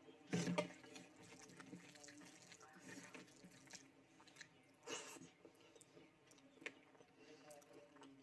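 Quiet close-miked eating: soft wet chewing and mouth sounds, with a louder mouth sound about half a second in and another around five seconds.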